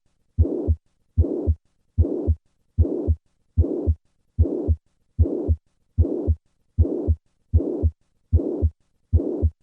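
Heart sounds with the pansystolic (holosystolic) murmur of mitral regurgitation, at about 75 beats a minute. In each beat a low first heart sound is followed by an even-level whooshing murmur that fills all of systole right up to the second heart sound, then a short silence. The murmur running all the way to the second heart sound is what marks it as a regurgitant rather than an ejection murmur.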